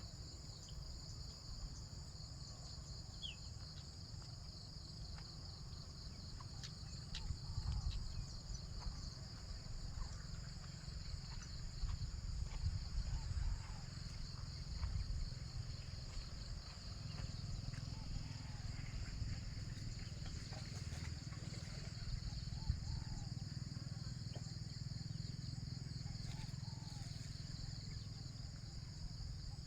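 Steady high-pitched insect chorus with a fast pulsing trill, over a low rumble that swells at times.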